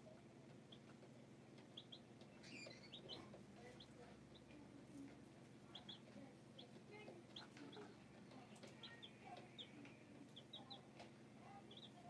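Baby chicks peeping faintly: short, high peeps, often two or three in quick succession, scattered throughout, over a faint steady low hum.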